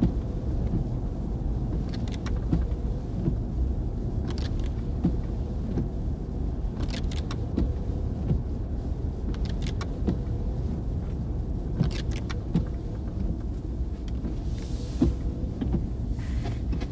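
Car driving, heard from inside the cabin: a steady low rumble of engine and tyres, with scattered small clicks and rattles.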